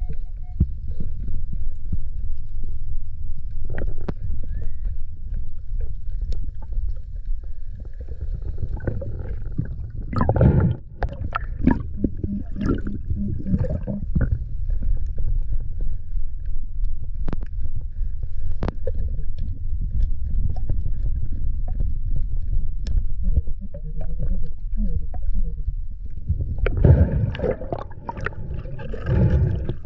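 Muffled underwater rumble picked up through a camera housing, with gurgling bubbling that swells about ten seconds in and again near the end.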